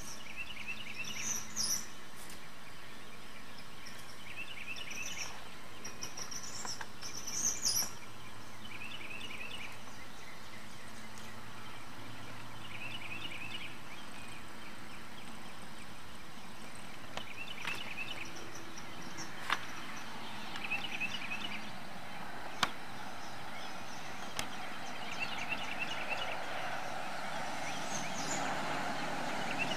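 Songbirds calling outdoors: a short trill of quick chirps repeats about every two seconds, with higher chirps in the first few seconds, over a steady background rush. Two sharp clicks come in the second half.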